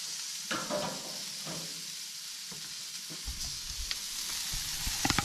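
Tomahawk ribeye steak sizzling steadily as it sears over high heat. A few light knocks and clicks of handling are heard, with a small cluster near the end.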